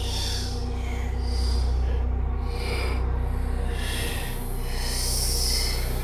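Ghostly whispering: breathy, hushed voices swelling and fading in hissy waves over a low, steady drone.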